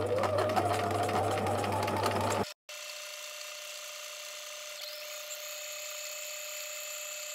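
A Bernina 1008 mechanical sewing machine stitching the towelling stitch at speed: motor hum, rapid needle strokes and a whine that rises as it speeds up. About two and a half seconds in the sound cuts off, and a quieter steady whine of thin high tones carries on for the rest.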